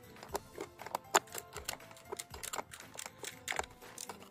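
Irregular sharp clicks and taps, a few a second, from a small metal tool knocking and scraping against the plastic base and clamp of a Corning fiber optic dome enclosure as it is handled.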